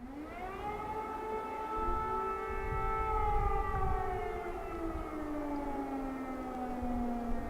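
Civil-defence air-raid siren wailing: it rises in pitch at the start, holds, then slowly falls.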